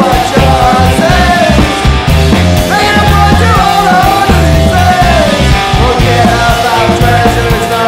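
Studio recording of a punk/math-rock song playing at full level: a full band with a heavy low end and a melodic line that slides up and down in pitch.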